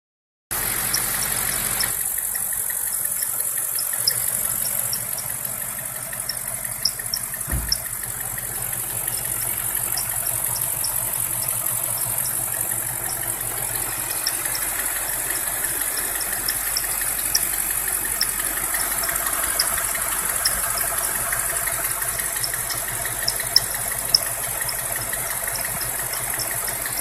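BMW N62 4.8-litre V8 idling cold, with a rapid series of short high-pitched squeaks over the steady engine sound; the whistle/squeak shows up only when the engine is cold. One brief low thump about seven and a half seconds in.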